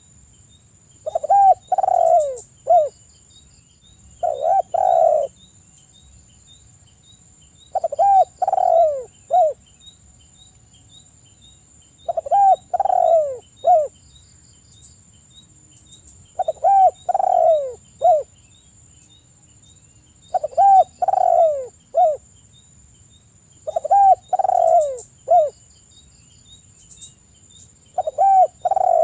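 Spotted dove cooing: phrases of three or four falling coos, the middle one longest, repeated about every four seconds.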